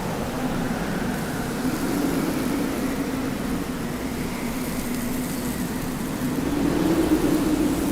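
Desert wind blowing steadily, with a low tone that rises and falls in pitch and a fainter higher whistle above it; gusts swell about two seconds in and again near the end.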